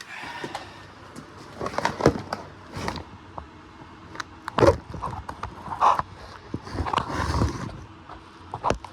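Irregular metal clanks, knocks and scrapes of hand tools and parts being worked on a truck's front wheel hub and bearing assembly.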